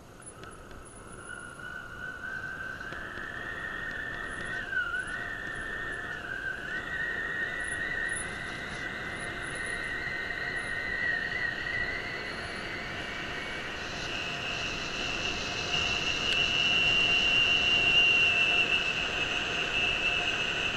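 Mountain bike rolling fast down a paved road: a sustained high squealing whine that slowly climbs in pitch, dips once briefly, then jumps higher and grows louder over a steady rushing noise.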